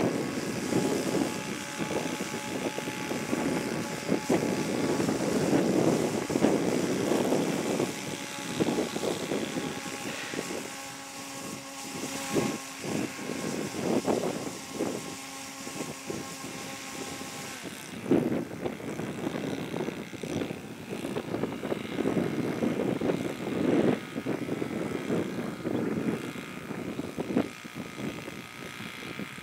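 Large radio-controlled model biplane's engine running steadily at idle, giving a constant drone, with uneven gusty noise over it. The steady engine tone drops away about two-thirds of the way through.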